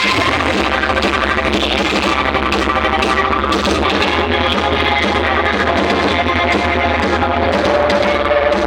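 Loud music played through a large carnival sound system during a sound check, with a heavy, steady bass.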